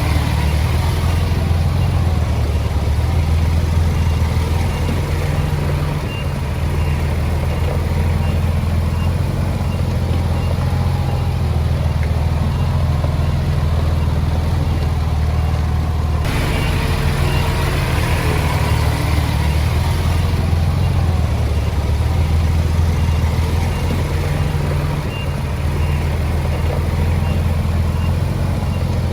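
Heavy diesel engine of a Komatsu D20P bulldozer running steadily under load, dipping briefly twice. A faint high beep repeats evenly over it.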